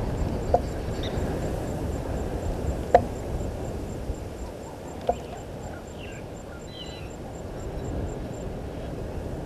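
Outdoor field ambience with a steady low rumble of wind noise, broken by three short sharp calls about two and a half seconds apart and a few faint high bird chirps near the middle.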